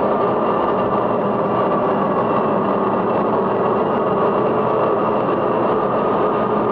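Steady mechanical drone with a few constant tones over an even hiss, unchanging throughout, as from running colliery machinery.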